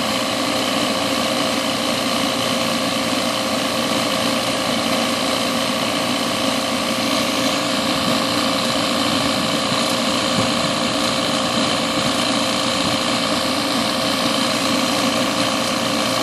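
Refrigerant recovery machine running steadily with a constant hum, pumping refrigerant into a recovery tank.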